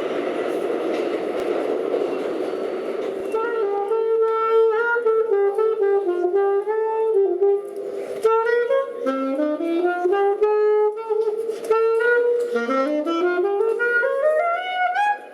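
A solo wind instrument, saxophone-like, playing a jazz melody line of quick stepped notes and rising scale runs. It comes in about three and a half seconds in, over a broad noisy rush at the start.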